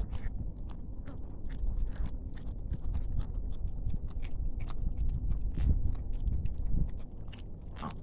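Several kittens chewing and biting raw meat scraps at close range: many quick, irregular wet clicks and small crunches. A steady low rumble runs underneath.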